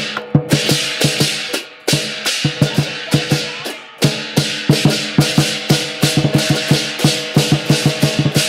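Large Chinese lion dance drum beaten with sticks in a rapid rhythm, with hand cymbals clashing along. The beat breaks off briefly and comes back in with a loud clash about two seconds in and again about four seconds in.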